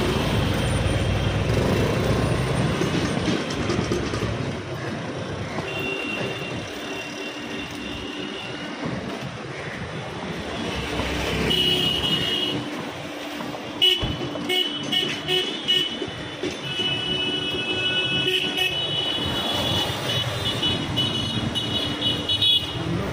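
Busy street traffic: engine rumble of a passing vehicle at first, then vehicle horns honking again and again through the second half, with a few sharp knocks.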